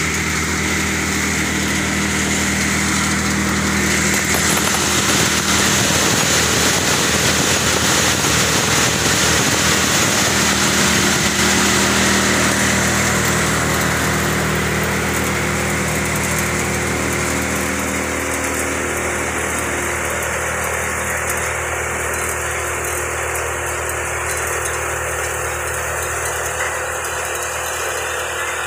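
Hadimba thresher running steadily while threshing a harvested crop: a constant machine drone, a little louder in the first half.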